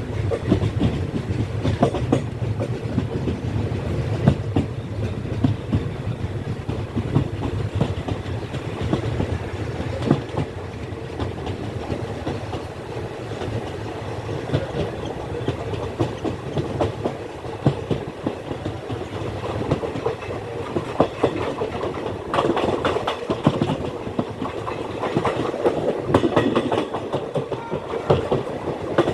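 Superfast express passenger train running along the track: a steady rumble with quick clickety-clack of the wheels over the rails. The rattle grows brighter in the last several seconds.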